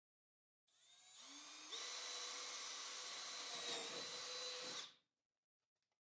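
Milwaukee M18 cordless drill running: it speeds up over about a second with a rising whine, runs steadily for about three seconds, then stops.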